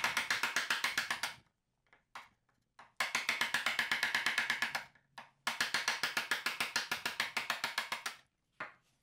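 Wooden mallet tapping a chisel in quick, light, even strokes, about seven taps a second, in three runs with short pauses, driving the chisel into the wood to cut a curve.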